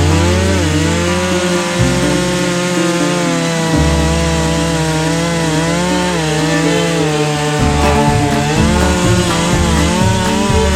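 Two-stroke chainsaw cutting through wood. Its engine pitch dips and rises again and again as it works under load. The chain is dull and cutting slowly.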